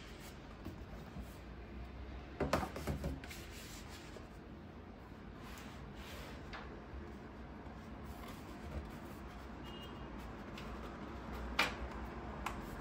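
Handling of a cardboard doll box: a cluster of knocks a couple of seconds in as its clear-windowed lid is set down on a wooden table, then light handling of the tray and one sharp knock near the end.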